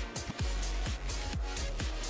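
Electronic background music with a steady beat of about four kick-drum thumps a second over deep bass.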